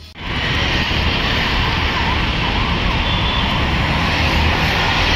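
Steady roadside traffic noise, a dense low rumble with hiss, starting suddenly and holding steady.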